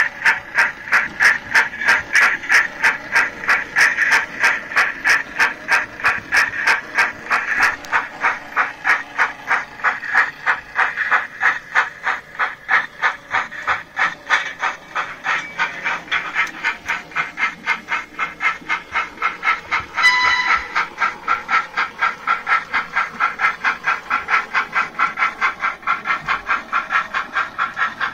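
Steam locomotive sound: steady rhythmic chuffs with hiss, about three to four beats a second, as a train gets under way. About two-thirds of the way through comes one short whistle blast.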